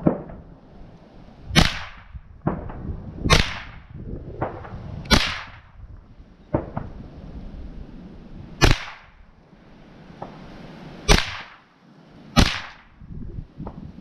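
Seven sharp cracks of .22 rifle shots, fired at an uneven pace one to three and a half seconds apart, with fainter knocks between some of the shots.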